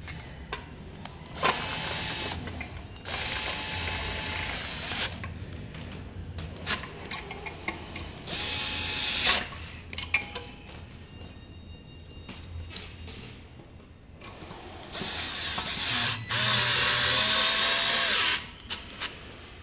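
Cordless power screwdriver driving the four mounting screws of an electric scooter's folding mechanism, in several short whirring runs with clicks between them; the longest run comes near the end.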